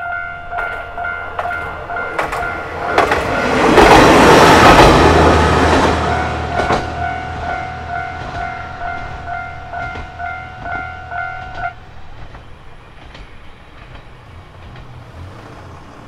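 Japanese railway crossing alarm bell dinging in a quick steady repeat while a diesel railcar passes over the crossing with a low engine rumble. The train noise swells to its loudest about four seconds in and then fades. The bell stops about two-thirds of the way through as the crossing clears.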